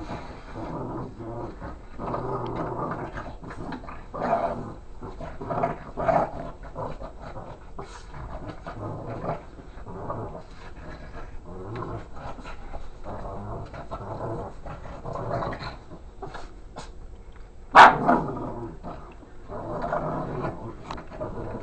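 A Boston terrier growling and rustling as it digs and noses into a quilted comforter on a couch, with one sharp, loud bark about eighteen seconds in.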